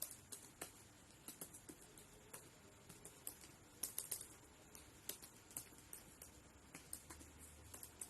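Faint typing on a computer keyboard: quick, irregular keystroke clicks, some in short runs.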